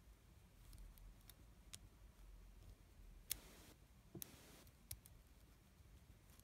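Faint, scattered small metallic clicks of a lock pick and tension tool working the pin stack of a five-pin Brinks padlock during single-pin picking, about half a dozen, the loudest about three seconds in.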